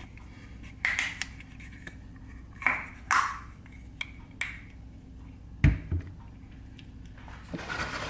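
Plastic screw cap of a Sunny Delight juice bottle being twisted open and handled: a string of short sharp clicks and scrapes, with a dull knock a little past halfway.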